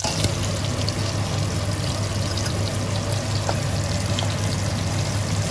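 Sausages and pieces of smoked pork fat sizzling and crackling in hot rendered lard in a pot: a steady, dense hiss with a constant low hum beneath.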